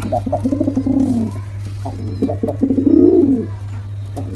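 Domestic pigeon cooing: two low, warbling coo phrases, one at the start and another about two seconds in, over a steady low hum.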